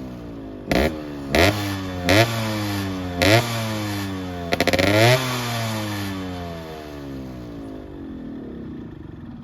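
Yamaha RX-series two-stroke single-cylinder motorcycle engine being revved: four short sharp throttle blips, then a longer stuttering burst, with the revs sinking back after each. The engine then settles and fades toward the end.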